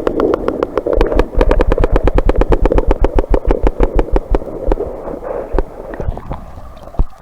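Creek gravel rattling in a fast, even rhythm of about eight strokes a second as the target is dug or sifted out of the stream bed. It is loud at first and fades toward the end.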